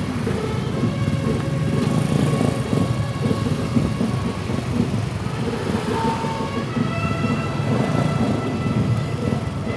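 Motorcycle engines running at low speed in a crawling procession, with a fluttering wind rumble on the microphone.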